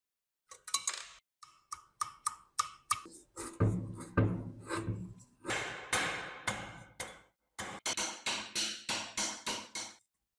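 Hand-tool work on rusty metal: a quick, uneven series of sharp knocks and taps, about three or four a second, the first few with a short metallic ring.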